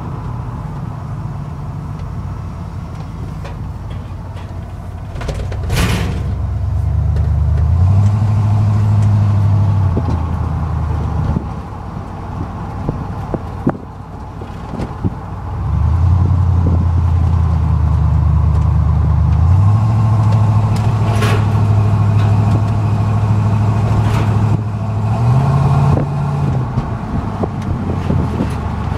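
Ford F-150 pickup's engine pulling away and running through the gears, its note stepping up and down in pitch, loudest from about six to ten seconds in and again from about sixteen seconds until near the end. A few sharp clicks stand out, the clearest about six seconds in and about twenty-one seconds in.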